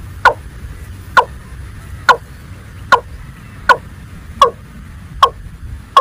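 A watercock gives a regular series of short calls, each falling sharply in pitch. There are about eight in a row, a little under a second apart and speeding up slightly.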